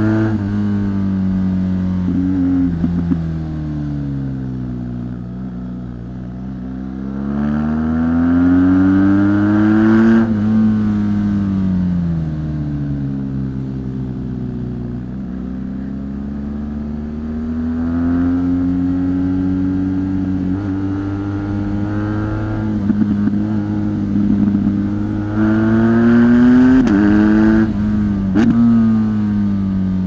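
Stock exhaust and engine of a 2017 BMW R1200 GS Rallye's 1170 cc boxer twin, heard onboard while riding. The engine note falls as the throttle is rolled off and rises again under acceleration, several times over. Near the end there is a quick drop and recovery in pitch.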